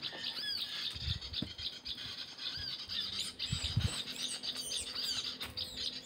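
Small songbirds chirping with many quick, repeated arching notes: prenjak calls, from the trapping lure and birds around the limed sticks. A few dull low thumps of footsteps and branches come about a second in and again near the middle.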